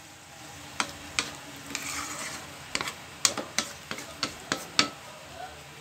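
Wooden spoon stirring sautéed bamboo shoots and shrimp in a hot wok, sizzling, with a dozen or so sharp clicks of the spoon against the pan. A little water goes into the pan partway through to let the shoots simmer and soften.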